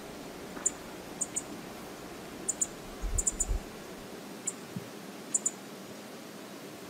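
Steady hiss of flowing river water, with scattered sharp high clicks, many in close pairs, and a short low thump about three seconds in.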